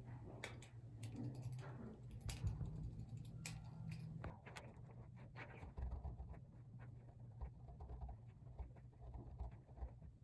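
Pen writing on paper: faint scratching and tapping strokes, busiest in the first half, over a steady low hum.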